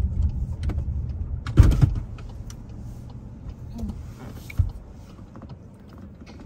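Low rumble of a car heard from inside the cabin, fading after about two seconds as the car comes to a stop, with a sharp knock about one and a half seconds in and a fainter one about four and a half seconds in.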